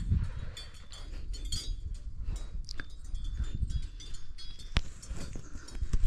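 Small metal bells jingling irregularly with short ringing tones, over a low rumble; a single sharp click about five seconds in.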